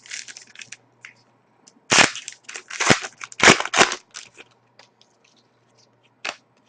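Crackling and crinkling of a foil trading-card pack wrapper being torn open and handled, as a run of sharp crackles that is loudest from about two to four seconds in.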